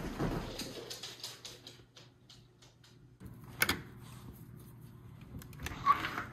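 Front door being handled and opened: scattered light clicks, a sharp latch click about three and a half seconds in, and another sharp click near the end.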